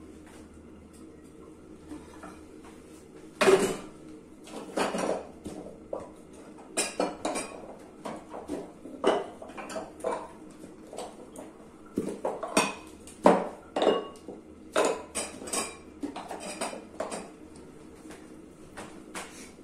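Kitchen utensils clinking and knocking against dishes and cookware: irregular sharp strikes with short metallic ringing, several in quick runs, the loudest about three and a half seconds in and again near the middle, over a faint steady hum.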